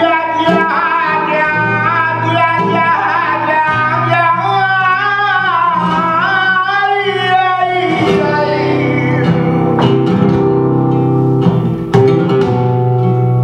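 Flamenco song with guitar: a man sings a long, wavering, ornamented line over a flamenco guitar, and about eight seconds in the guitar comes to the fore with strummed chords.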